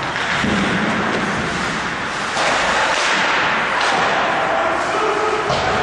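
Ice hockey play: skates scraping on the ice and a steady rush of rink noise, with occasional knocks and thuds from sticks, puck or bodies against the boards.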